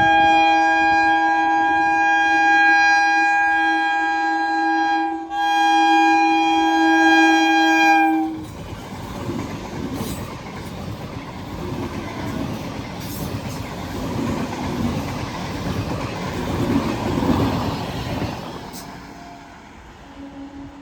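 Indian train's horn sounding in a long blast, breaking off for an instant about five seconds in, then blowing again until it stops about eight seconds in. The train then runs past, its wheels rumbling and clattering on the track, fading near the end.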